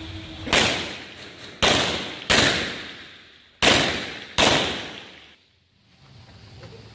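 Five pistol shots from a Rock Island Armory Tac Ultra FS HC, a single shot followed by two quick pairs, each echoing.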